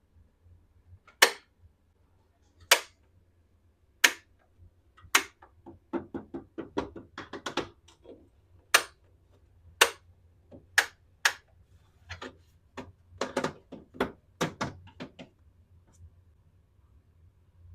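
Sharp clicks and taps of small plastic toy pieces being handled and set down. Single clicks come about a second apart, with quicker runs of clicks twice, and the clicking stops a little past halfway.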